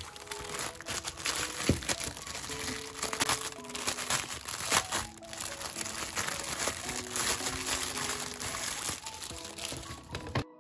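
Clear plastic wrapping film crinkling and crackling as it is pulled off a white plastic desk organizer tray, with many sharp crackles; it stops suddenly near the end.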